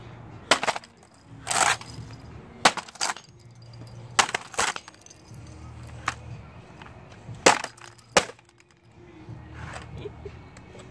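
Hammer blows on a laptop lying on concrete: about nine sharp, irregular strikes, several in quick pairs, as the plastic case and keyboard break apart.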